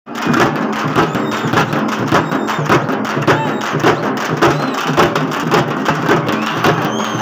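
Drums beaten in a steady, loud rhythm, with the main stroke falling about twice a second and lighter strokes in between.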